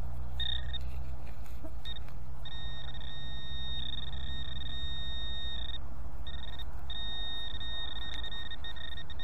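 Metal detector giving its target tone: a steady high-pitched beep held in long stretches with short breaks, over a steady low rumble.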